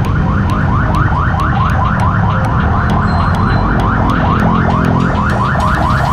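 A fast, repeating electronic chirp: short rising sweeps about five a second, over a low rumble and steady high ticks.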